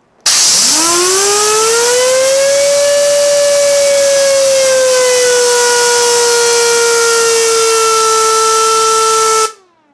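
3D-printed air raid siren built around a Noctua A12x25 fan, spun by compressed air: a loud wail that rises in pitch over the first three seconds, then holds a steady, slowly sinking tone, with the hiss of the air jet over it. Both cut off suddenly near the end.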